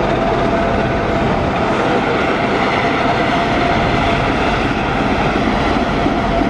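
BDŽ class 55 diesel-hydraulic locomotive running as it rolls slowly past at close range, hauling a passenger train. The engine noise is loud and steady, with a constant whine over it.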